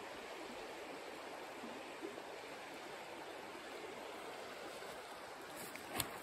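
Shallow forest creek running steadily over riffles. A single sharp knock near the end.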